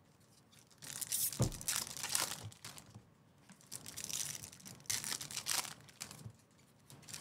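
Trading-card pack wrappers crinkling and tearing as packs are ripped open, in two stretches with a short quiet gap, plus a single dull thump about a second and a half in.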